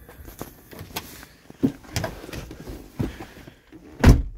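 A car's door and cabin handled as someone climbs into the driver's seat: scattered knocks and rustling, then one loud thump near the end.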